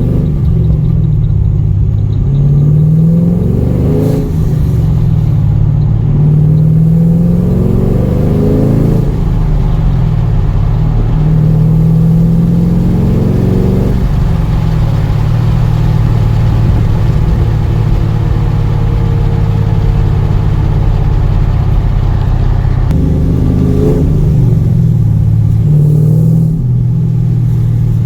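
Chevrolet Camaro SS 6.2-litre V8 engine and exhaust accelerating through the gears, its pitch climbing and dropping back at each upshift, then settling into a steady cruise about halfway through, with a short rise in revs near the end.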